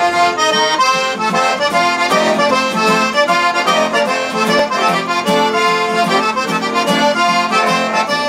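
Music led by an accordion, a traditional Cajun-style tune of quick, changing notes.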